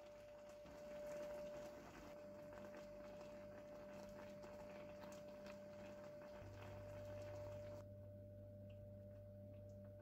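Faint bubbling of quince halves boiling in sugar syrup in a steel pot, over a steady low hum and a thin steady tone.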